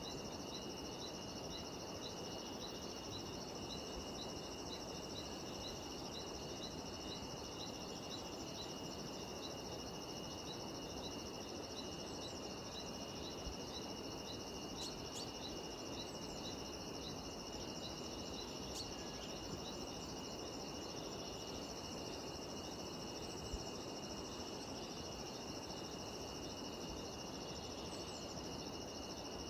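Steady droning chorus of cicadas and other insects in tropical mountain forest. A short high chirp repeats about twice a second and fades out about two-thirds of the way through, over a soft low background hiss.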